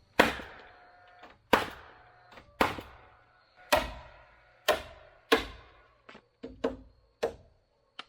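Hammer blows, six hard strikes roughly a second apart, each ringing briefly, followed by a few lighter taps near the end.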